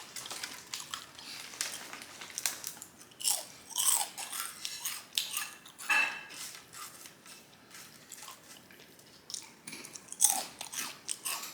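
A person chewing and crunching potato chips with the mouth, in irregular crisp crunches with a few louder bites.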